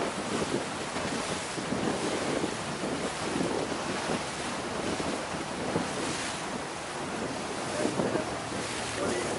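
Wind buffeting the microphone and water rushing and splashing along the hull of a small motorboat under way through choppy water, rising and falling in gusts.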